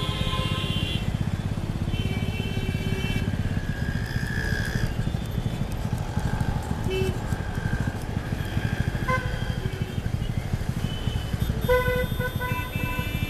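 A motorcycle's engine running at low speed with a steady, fast low pulsing. Near the end, short vehicle horn honks sound over it.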